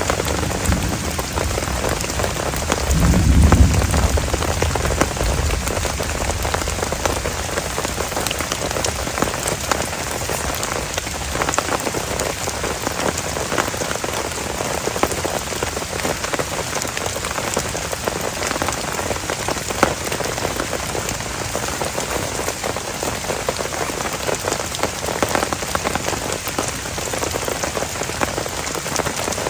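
Heavy rain falling steadily, a dense patter of drops hitting a surface. About three seconds in, a brief low rumble rises over it.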